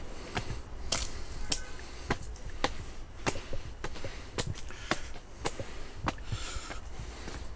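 Footsteps of a hiker walking on a mountain trail at a steady pace, about two steps a second, with a short breath or sniff near the end.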